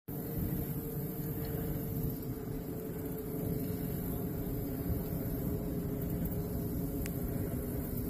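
Steady low rumble of distant traffic, with a faint tone near the start that fades out over a few seconds and a single faint tick near the end.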